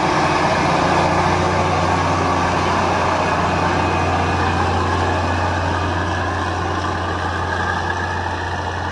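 Heavy machine's engine running steadily with a low hum, easing off slightly near the end.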